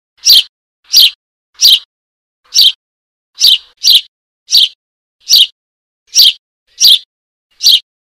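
Young Eurasian tree sparrow giving begging calls for its parent: a steady series of short, high-pitched chirps, about one every three-quarters of a second, stopping just before the end.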